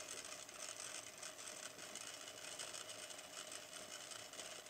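Faint steady hum of a sewing machine run slowly without needle or thread, its feed dogs moving two plies of fabric.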